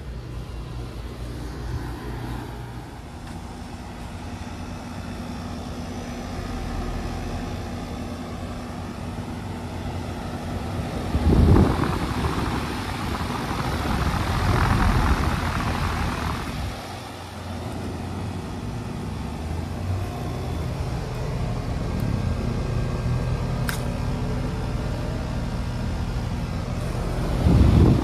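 Outdoor heat pump condensing units running: a steady hum of compressor and condenser fan. About halfway through, a louder rush of fan air builds for several seconds, and there are two brief low thumps, one before it and one near the end.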